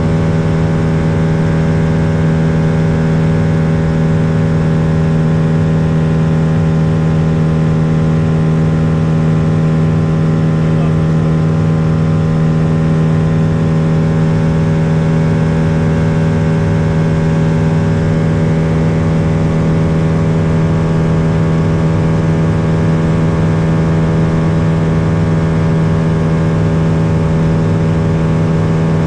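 Lake LA-4-200 Buccaneer amphibian's engine and pusher propeller running at a steady drone on approach, with no change in pitch or loudness.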